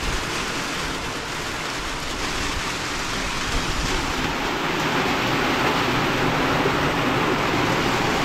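Heavy rain falling steadily. It gets louder about halfway through as the rain starts hitting an open umbrella overhead.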